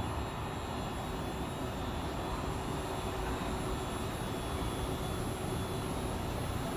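Steady hum and whir of a Seibu Railway electric train standing at a station platform with its onboard equipment running, a few faint steady tones over an even noise.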